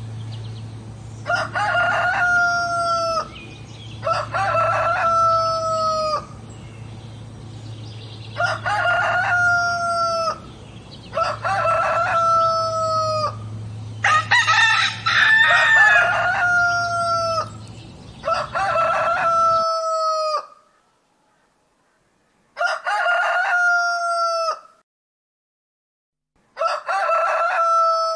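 Roosters crowing: about eight long cock-a-doodle-doo crows, each about two seconds, one after another. A steady low hum lies under the first six crows and stops about twenty seconds in; the last two crows come against a quiet background.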